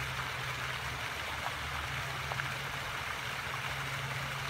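Steady rushing splash of a pond fountain, with a low steady hum underneath.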